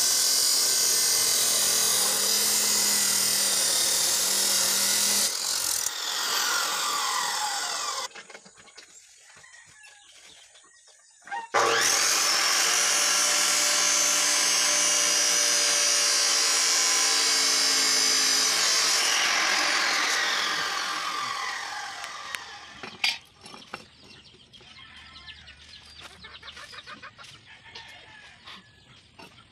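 Electric abrasive chop saw cutting steel, its cut-off disc grinding through the metal with a loud, steady noise. It stops suddenly about eight seconds in, starts again a few seconds later and runs on, then winds down with a falling whine, leaving only a few faint knocks.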